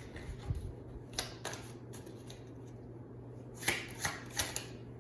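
Tarot or oracle cards being handled: a few short papery slaps and slides of cards, with the loudest cluster of three about three and a half seconds in.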